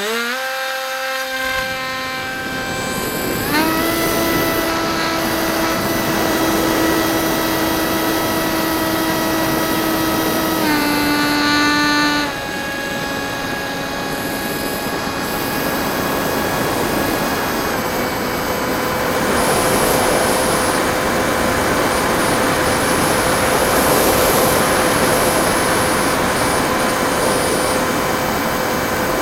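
Bixler 1.1 RC plane's NTM 2200kv brushless electric motor and propeller running at a high, steady whine under throttle. The pitch steps up a few seconds in, then drops back in stages around twelve and eighteen seconds in, while a rushing noise of wind grows in the second half.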